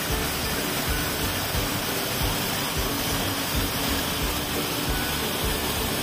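Small waterfall pouring over rock, heard close up as a steady, even rush of falling and splashing water.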